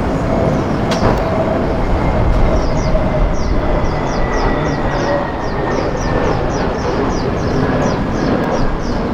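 Aircraft engines running loud and steady, with a faint whine that falls slowly in pitch. From about three seconds in, a quick series of short high chirps sounds over it.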